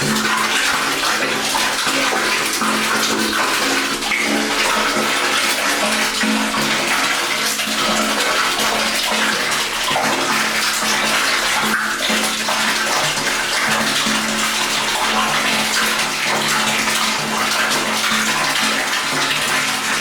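Water pouring steadily into a tank: a continuous splashing rush with low steady tones beneath it.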